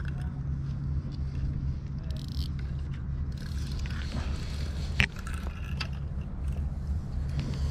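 Fishing rods and tackle being handled: scraping and light clicks, with one sharp click about five seconds in, over a steady low rumble.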